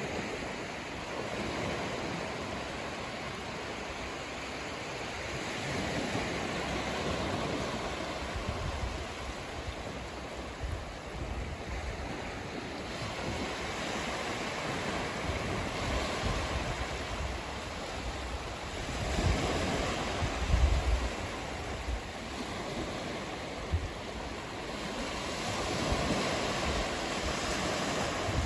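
Small, gentle waves breaking and washing up a sandy beach, the surf swelling and ebbing every several seconds. A few low gusts of wind buffet the microphone about two-thirds through.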